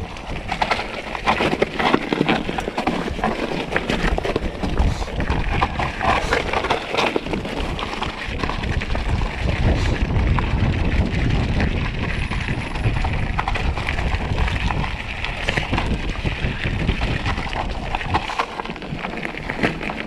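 Wind buffeting the body-mounted camera's microphone while a mountain bike rolls over a loose, stony dirt trail, with the tyres crunching and the bike rattling over small rocks.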